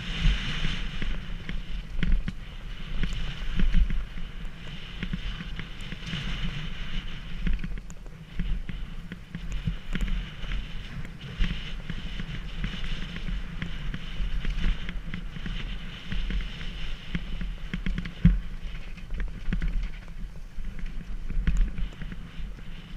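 Mountain bike running downhill over rough ground, with wind rumbling on the microphone and frequent knocks and rattles from bumps, one sharp jolt about 18 seconds in.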